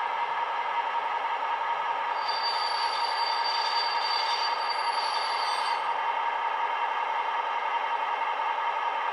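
Sound decoder in a model DB class 218 diesel locomotive playing the diesel engine running through its small speaker, with a high, steady brake squeal from about two seconds in until near six seconds as the model slows to a stop.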